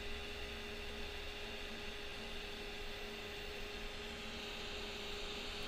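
A steady electrical hum with a faint hiss from a Big Dipper 7R sharpy moving-head beam light running under test. The hum holds one pitch.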